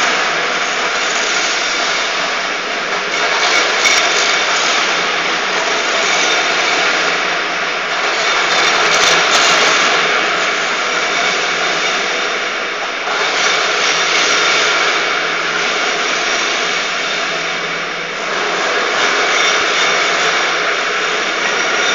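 Şen-Mak HS 5000 light floor grinder running, sanding a cured epoxy floor before the topcoat: a loud, steady grinding whir that swells and dips a little every few seconds as the machine is worked across the surface.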